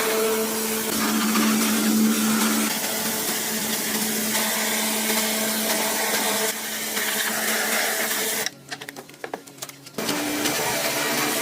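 A small motor running steadily with a hum and hiss, stopping for about a second and a half near the end with a few clicks before it starts again.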